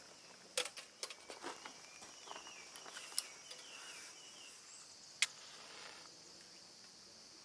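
Outdoor ambience of insects droning steadily at a high pitch, growing stronger near the end, with a few sharp clicks and knocks (the loudest about five seconds in) and a short run of wavy chirps in the middle.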